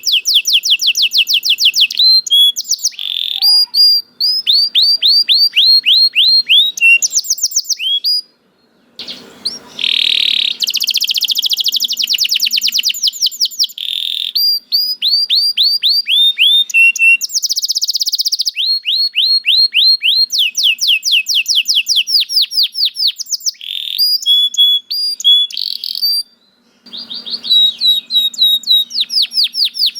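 Domestic canary singing a long, fast song: rapid trills and rolls of quickly repeated high sweeping notes, changing phrase every second or two, with a couple of brief pauses.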